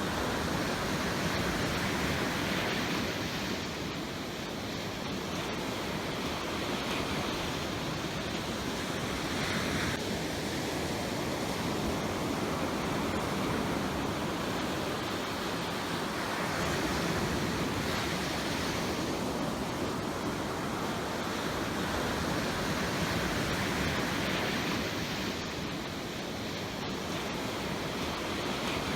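Ocean surf: waves washing in continuously, rising in gentle swells every few seconds.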